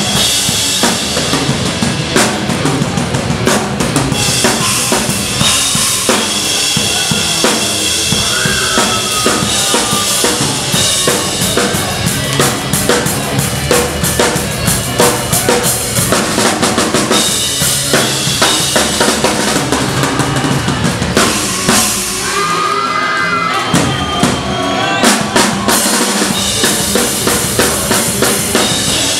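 Punk rock band playing live: a driving drum kit with kick and snare under electric guitars, loud and continuous.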